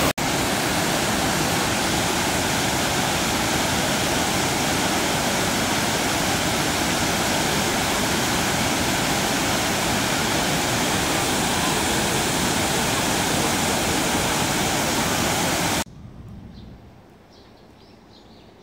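Steady rush of water pouring down a cascading fountain wall and splashing into the pool below. It cuts off suddenly near the end, leaving quiet outdoor air with a few faint bird chirps.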